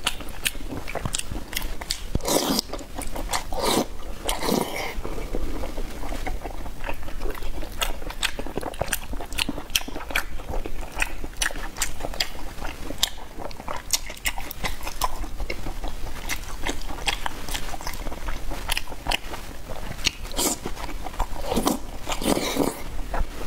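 Close-miked eating sounds: a person biting and chewing food, with many irregular crunches, mouth clicks and wet smacks.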